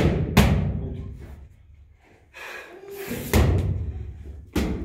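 Punches smacking into a boxing coach's focus mitts: two sharp hits in quick succession, a pause of about three seconds, then two more, each ringing briefly in the gym hall.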